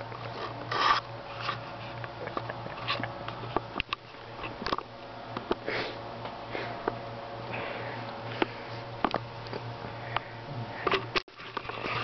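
Small dog rolling and wriggling on its back on a carpet, making quick irregular sniffs and huffs through its nose and open mouth.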